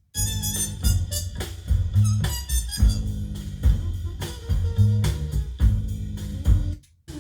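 Band music with a steady beat played back through Edifier MR5 speakers. It cuts out briefly at the start and again about seven seconds in.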